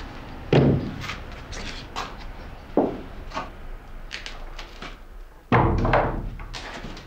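Wooden blocks knocking together as a block is set down on a stacked pile, with a heavy thud about half a second in and lighter knocks after it. About five and a half seconds in, a wooden plank door shuts with a loud thud.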